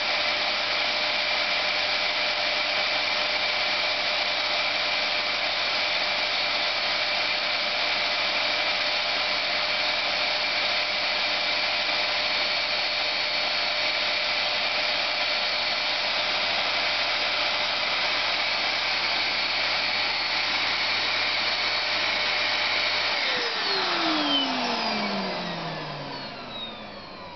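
Dyson bagless canister vacuum cleaner running steadily, a loud rush of air with a steady whine. About 23 seconds in it is switched off and the motor winds down, its pitch falling as it slows.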